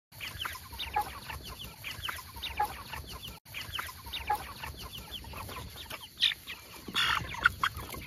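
A flock of Jumbo Cornish Cross broiler chickens calling, many short falling-pitched peeps and clucks overlapping, with a brief break about three and a half seconds in.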